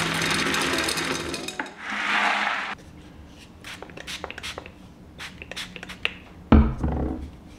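Clay pebbles poured from a plastic scoop into a glass vase, a dense rattle for about the first second and a half, then a short rustle. After that come scattered light clicks as pruning shears are handled, and one heavier knock about six and a half seconds in.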